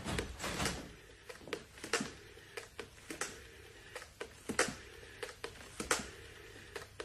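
A door and a string of irregular knocks and clicks in a small room, with a louder knock every second or so and fainter clicks between.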